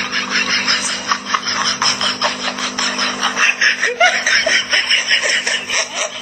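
A person laughing hard in quick breathy bursts, about five a second, over a steady low hum.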